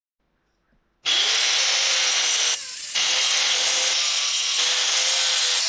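About a second in, an angle grinder fitted with a toothed circular saw blade starts cutting into a block of wood: a loud, steady motor whine mixed with the rasp of the blade's teeth in the wood.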